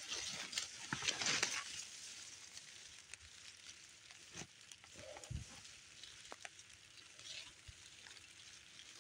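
Leafy brush rustling and scraping against the camera, loudest in the first two seconds, followed by scattered light clicks and a dull thump about five seconds in.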